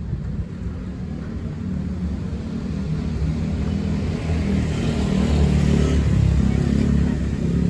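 Street traffic: a vehicle's engine rumbling close by, growing steadily louder and loudest about six seconds in before easing slightly.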